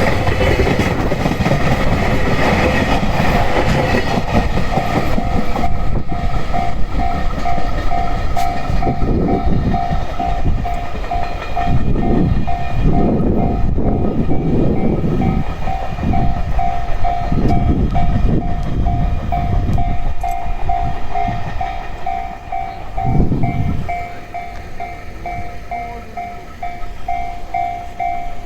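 Level-crossing warning bell ringing in a steady, evenly repeated pulse while a train passes over the crossing. The train's wheel rumble swells unevenly through the middle and dies away over the last few seconds as the bell keeps ringing.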